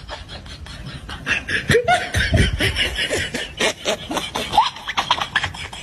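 A person laughing in rapid, breathy snickering bursts, starting about a second in.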